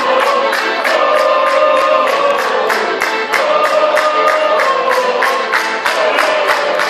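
Circassian dance tune on an accordion with a group clapping hands in time, about three claps a second.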